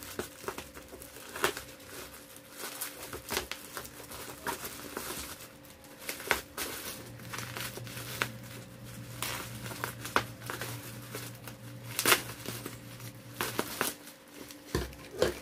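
Plastic packaging wrap crinkling and crackling in irregular sharp bursts as it is handled and cut open with scissors.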